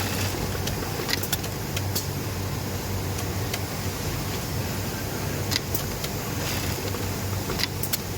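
Industrial sewing machine running: a steady motor hum with scattered sharp clicks.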